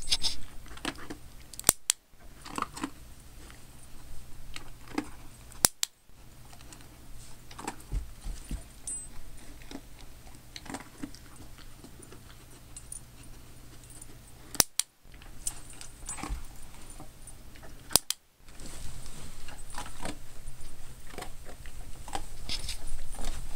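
A dog's collar tags jingling in small, irregular bursts as it noses and paws at a rolled towel, with soft rustling of the cloth. A few sharp clicks stand out, and the jingling and rustling get busier near the end.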